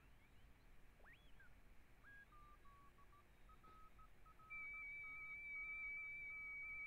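Audio of a one-transistor J310 JFET regenerative receiver tuned across the 40-meter CW band, heard off a headphone earpiece: whistles sweeping up in pitch as the tuning knob is turned, then a Morse code station keying a beat tone on and off. About four and a half seconds in, a louder steady whistle from a second signal joins it.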